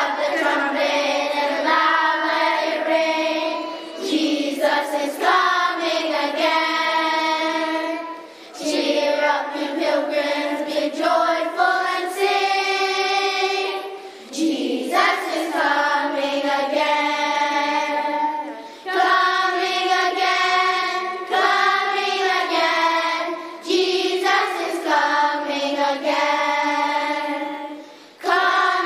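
A group of children singing together, in phrases a few seconds long with short breaths between them.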